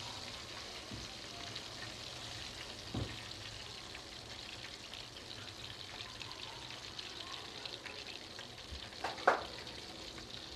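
Coated chicken pieces deep-frying in oil in a kadai: a steady crackling sizzle. A light knock comes about three seconds in, and a sharper, louder knock about nine seconds in.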